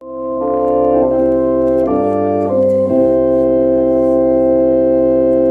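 Music: an organ playing slow, held chords that change three times.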